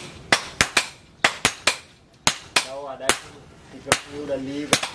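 Hand hammer striking red-hot leaf-spring steel on an anvil while a billhook blade is forged: sharp, ringing blows at an uneven pace, roughly two or three a second, with a short pause about two seconds in.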